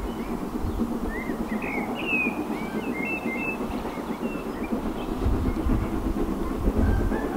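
LSWR Urie S15 4-6-0 steam locomotive No. 506 working a train in the distance, a steady rumble with no clear exhaust beat. Small birds chirp over it for a couple of seconds early in the clip, and a deeper low rumble swells about five seconds in.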